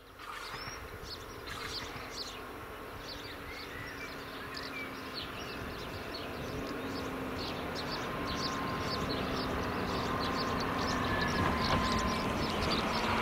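A diesel railcar approaching, its engine and running noise growing steadily louder, with birds chirping throughout.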